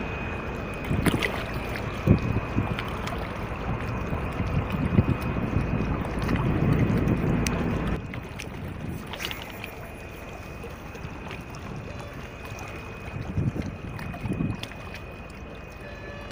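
Wind rumbling on the microphone at a waterside, heavier for the first eight seconds or so and then easing. A few sharp clicks come from the rod and reel being handled.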